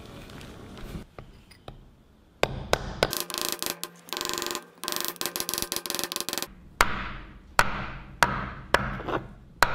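Steel hammer striking a punch set against the seized, corroded switching mechanism of a magnetic chuck: from about two-thirds of the way in, sharp blows come roughly every two-thirds of a second, each with a short metallic ring. Before that there is a quick run of light metallic taps.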